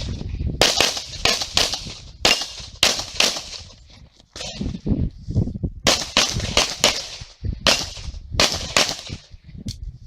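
Pistol shots fired rapidly in an IPSC handgun stage, mostly in quick pairs, about fifteen in all, with a pause of a second or so about four seconds in.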